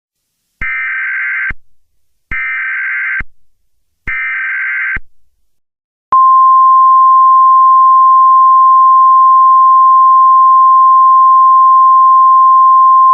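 Emergency Alert System header: three one-second bursts of buzzing SAME digital data tones, then a single loud, steady attention tone near 1 kHz from about six seconds in, which cuts off at the end.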